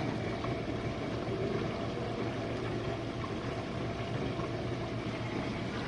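Jenn-Air dishwasher running its wash cycle: a steady swish of circulating water over a constant low hum of the wash pump motor.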